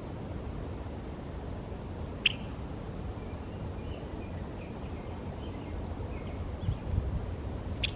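Wild birds chirping faintly, with two sharp, short chips, one about two seconds in and one near the end, over a steady low rumble.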